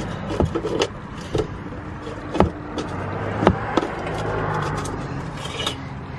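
Sharp metallic knocks and clanks, several spaced out with two louder ones, as exhaust tips are slid onto the tailpipes and seated by hand. A steady low hum runs underneath.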